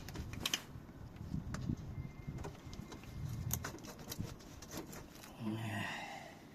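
Scattered light clicks and taps of hands working a fuel filter loose from its clipped casing under a car bonnet.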